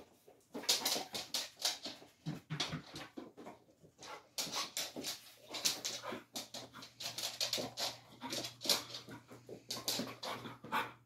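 English springer spaniel sniffing in quick, irregular bursts while hunting by scent for a hidden ball.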